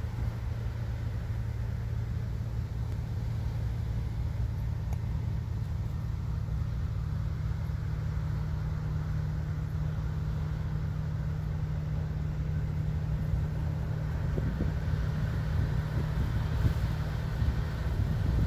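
Steady low engine drone of a cargo ship under way, a deep hum that grows slowly louder as the ship comes nearer, with a few low thumps near the end.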